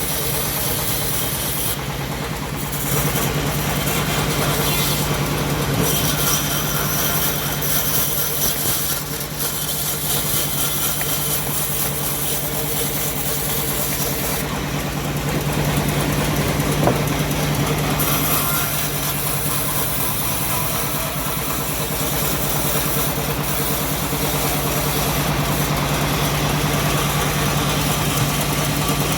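Engine of a homemade bandsaw sawmill running steadily while the blade saws a teak log, a constant low hum with a hiss above it that grows and fades.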